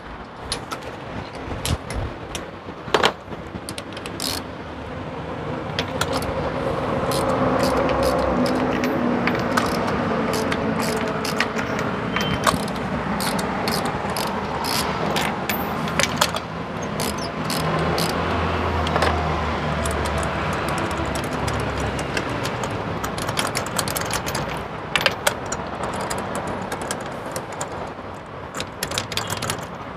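Ratchet wrench and socket clicking in short runs as the spark plugs are loosened from a Chevrolet Spark's four-cylinder engine, over the sound of a vehicle engine running that grows louder after a few seconds and eases off near the end.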